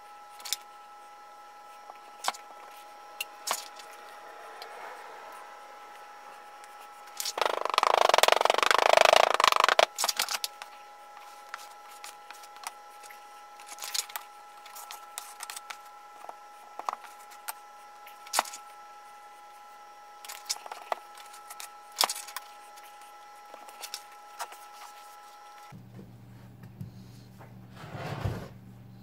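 Oil-bonded casting sand being packed and worked by hand in a wooden moulding flask: scattered taps, knocks and scrapes, with one loud, rough scraping rush lasting about two and a half seconds near a third of the way in. A faint steady hum sits underneath.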